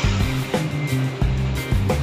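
Background music with a steady beat and a low bass line.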